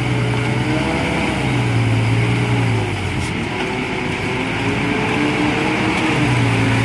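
Hino truck's diesel engine labouring at low speed under a heavy load of marble boulders, its note wavering up and down as the driver works the throttle on the rough track.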